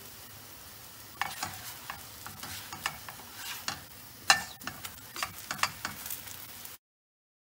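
Paratha frying in oil in a nonstick pan with a steady sizzle, while a spatula scrapes and taps against the pan as the flatbread is lifted and flipped. The sharpest knock comes about four seconds in, and the sound cuts off abruptly near the end.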